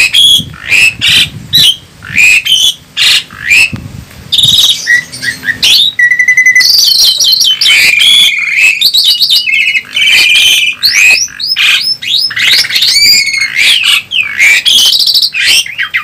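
Asian pied starlings (jalak suren) singing loudly against each other: a quick string of harsh calls, then from about six seconds in a dense, varied run of whistles, trills and rattling phrases.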